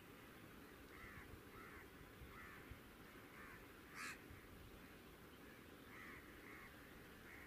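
Faint bird calls, short and repeated every half second to a second, over a low steady hiss. One short, sharp sound about four seconds in is the loudest thing.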